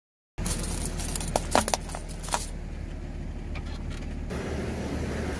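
A car engine idling steadily, with a burst of sharp clicks and clinks between about one and two and a half seconds in.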